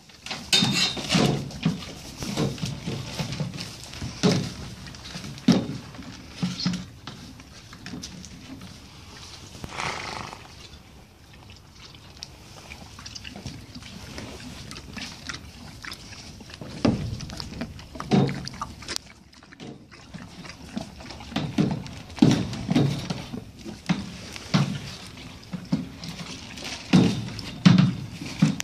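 A horse eating feed from a plastic bucket: chewing, and its muzzle rooting and knocking in the bucket in irregular bouts.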